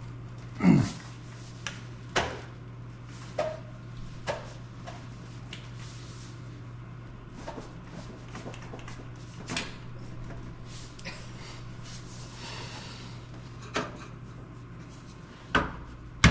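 Scattered knocks, clunks and scrapes of a metal stove vent pipe being handled and worked into place, the loudest a scrape with a falling pitch about a second in, over a steady low hum.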